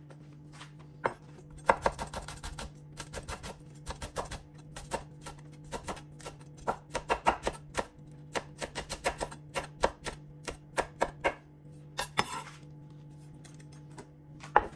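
Chef's knife slicing green chili peppers on a wooden cutting board: a quick run of knife strokes clicking against the board. The strokes start about a second in, pause briefly in the middle and stop a couple of seconds before the end.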